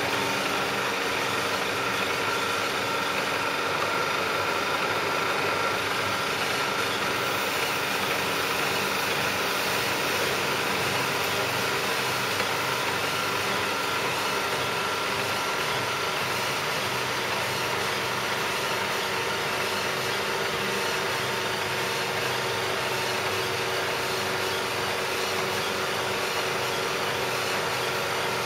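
Butler Elgamill CSN10 bed mill running under power: a steady machine hum with several steady whining tones in it.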